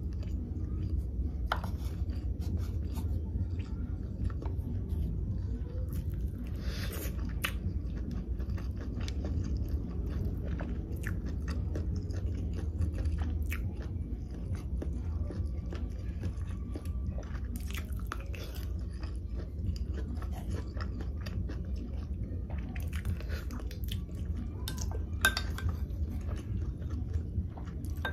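Close-miked chewing and biting of sea grapes and leafy greens taken from a spoon: wet mouth sounds with many scattered short clicks, over a steady low hum.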